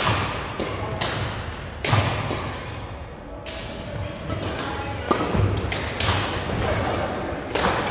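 Badminton rally: rackets striking a shuttlecock in sharp hits every second or so, with players' shoes thudding on the court floor, echoing in a gym.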